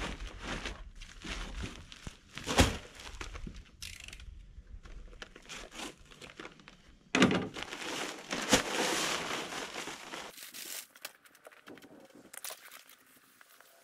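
Paper bag of dry concrete mix handled and torn open, crinkling, with a few knocks, then the dry mix pouring out into a wheelbarrow in a rush of about three seconds that stops suddenly.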